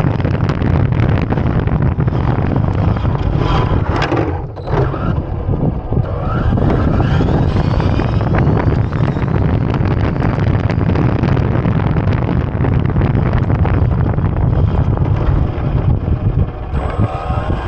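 Electric motor whine of a radio-controlled Losi 1968 Ford F100 no-prep drag truck, rising in pitch as it accelerates, a few times over. Heavy wind rumble on the microphone runs under it and is the loudest part.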